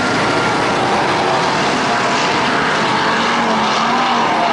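Several dirt-track race cars running around the oval together. Their engines blend into a loud, steady drone, with engine pitches rising and falling as the cars pass.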